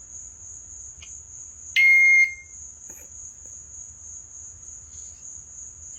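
A pet bird imitating a smoke alarm gives one loud, piercing beep about two seconds in, lasting about half a second. A steady high-pitched whine runs underneath.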